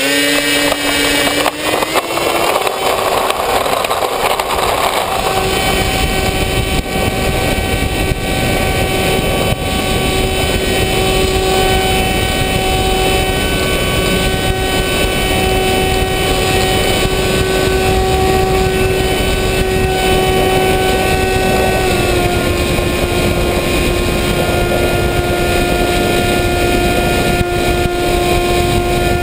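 FPV model aircraft's motor and propeller running at speed under heavy wind noise, heard from on board. The pitch rises as the throttle opens at the start, holds steady, then drops a little about two-thirds of the way through as the throttle eases.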